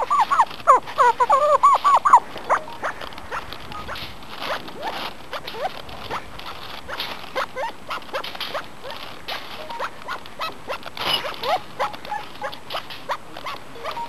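Arabian partridge cock calling in a rapid run of short, harsh notes for about the first two seconds, then fainter scattered calls and clicks. He is excited, likely defending his territory.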